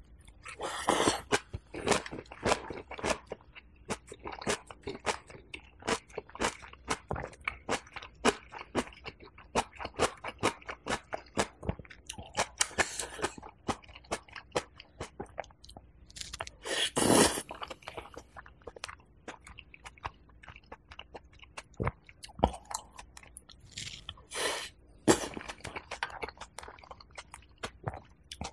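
A person chewing napa cabbage kimchi and chicken porridge with crispy rice crust on a clip-on microphone: many quick wet crunches and mouth clicks, with a longer, louder burst about two-thirds of the way through.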